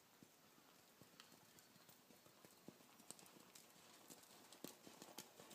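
Faint hoofbeats of a ridden horse moving over sand arena footing, a run of soft thuds that grows louder near the end as the horse comes closer.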